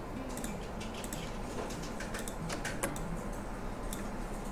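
Scattered light clicks of a computer mouse and keyboard at irregular spacing, over a low steady hum.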